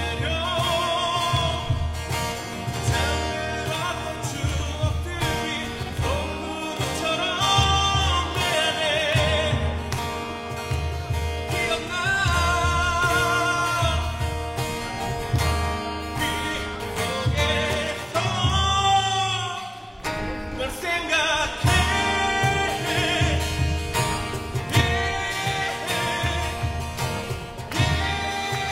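A song: a singer with vibrato over guitar-backed music with a steady beat.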